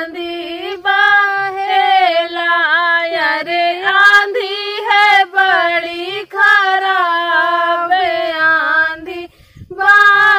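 Two women singing a Bagheli gaari geet, a folk wedding song, together in one voice line without instruments, with wavering ornaments on held notes and a short breath break near the end.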